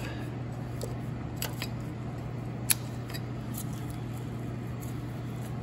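A wrench working a nut loose on the tractor's PTO housing: a few scattered light metallic clicks and taps, one sharper click near the middle, over a steady low hum.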